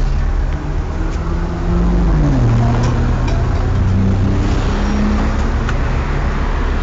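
City bus engine idling with a steady low rumble; about two seconds in, its pitch drops and settles lower. A few faint clicks sound over it.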